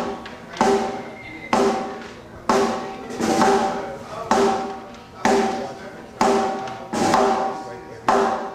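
Snare drum struck once about every second during a sound check, each hit ringing out with a steady drum tone before dying away.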